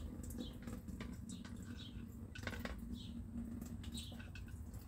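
Faint sound of filtered water from a Sawyer gravity filter's outlet hose running and dripping into a cooler, with many small clicks. Birds chirp several times in short notes.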